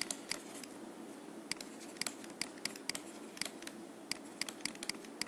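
Stylus tapping and scratching on a drawing tablet while handwriting: a string of short, sharp, irregular clicks, several a second, over a faint steady hum.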